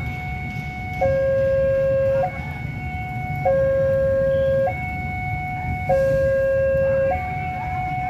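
Railway level-crossing warning alarm sounding an electronic two-tone signal: a lower and a higher tone alternate, each held for a little over a second, with the lower tone louder. A steady low rumble runs underneath.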